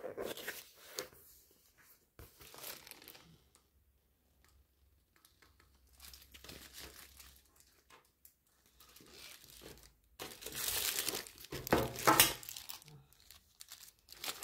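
Clear plastic packaging film on a new handbag crinkling as the bag is handled and turned over, in scattered rustling bursts with quiet gaps, loudest about ten to twelve seconds in.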